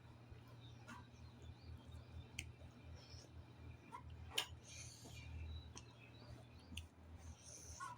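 Faint eating sounds: scattered small clicks and crunches of a person chewing a meal, with one sharper click about four and a half seconds in.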